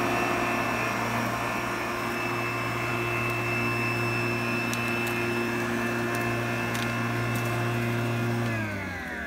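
Flymo Mighti Mo 300 Li 40V cordless lawnmower's electric motor and blade running at a steady whine while mowing grass. Near the end the motor is switched off and spins down with falling pitch.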